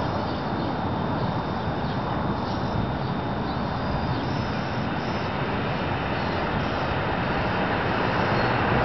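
1973 Federal Signal 2T22A dual-tone rotating outdoor warning siren sounding, heard across the neighbourhood, growing louder near the end.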